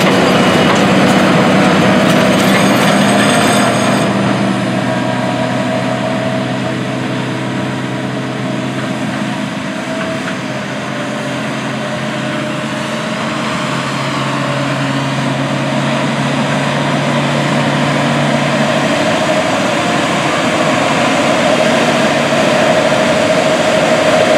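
Case IH Steiger 620 Quadtrac's diesel engine working hard as it pulls a ripper through hard, dry ground, a steady drone with track and tillage noise. It dips a little midway, then grows louder again as the tractor comes closer.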